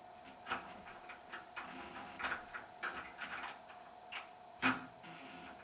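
A lock pick raked rapidly back to front across the pin tumblers of a deadbolt lock: an irregular run of small metallic clicks and scrapes, with one louder click a little before the end.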